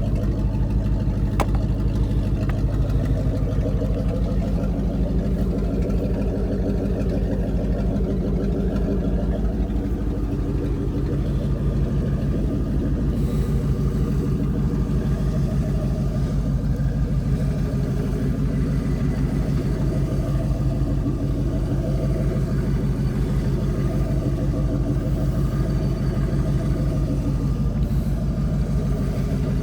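Ford pickup's 460 big-block V8 running steadily with an even, low note.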